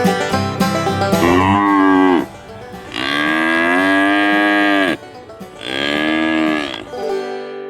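Cattle mooing three times: a short moo, a long drawn-out one, then a medium one, each bending down in pitch at its end. Banjo music plays briefly at the start.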